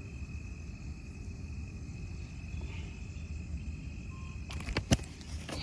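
Outdoor ambience: a steady low rumble with a faint, steady high-pitched tone, then a few sharp knocks about four and a half seconds in, the loudest near the end.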